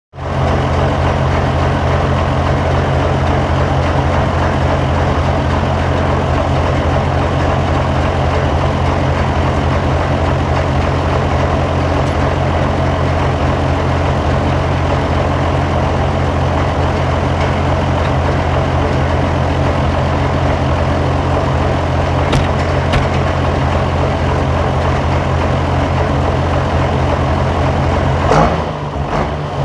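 John Deere 7515 tractor's diesel engine running steadily at a constant speed. About 28 seconds in the sound briefly shifts, with a short rise in pitch and a dip in level, then settles again.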